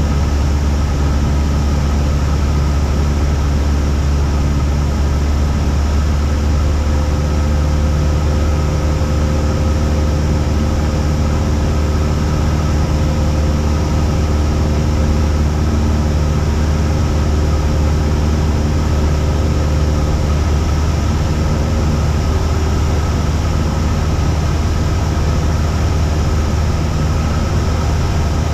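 Cessna 172's piston engine and propeller droning steadily at a constant power setting.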